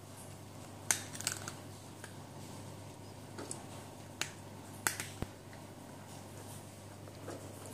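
Cat eating from a plastic food bowl: sharp, irregular crunching clicks, about seven over the first five seconds, the loudest about a second in, then quieter chewing.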